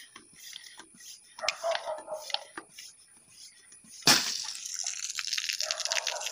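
Water rocket made from a plastic bottle launching off its PVC launcher with a sudden loud whoosh about four seconds in, followed by a couple of seconds of hissing water spray. Before the launch, faint strokes of the bicycle floor pump pressurising it.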